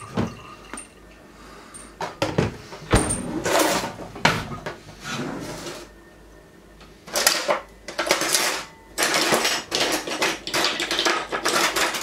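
Rummaging through a kitchen drawer: metal utensils clattering, with scattered knocks. The clatter comes in irregular bursts that are busiest in the second half.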